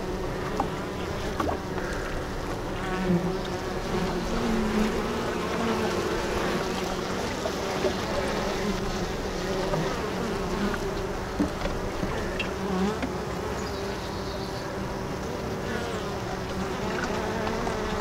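Honey bees buzzing at a hive entrance: a steady hum of many wings whose pitch wavers up and down, with brief louder buzzes now and then as single bees fly close past.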